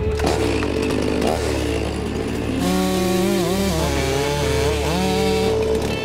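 Two-stroke chainsaw running and cutting, its pitch dipping briefly twice under load, with background music underneath.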